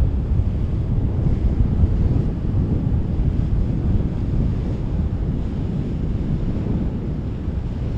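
Wind buffeting the microphone: a steady, low rumble with no distinct events.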